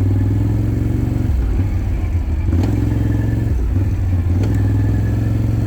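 Can-Am off-road vehicle engine running under throttle, its steady low note dropping off briefly and picking back up several times, with a few sharp knocks and rattles from the machine over rough ground.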